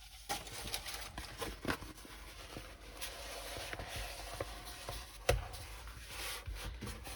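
Rustling, scraping and small taps from handling a rolled diamond painting canvas, with one sharper knock about five seconds in.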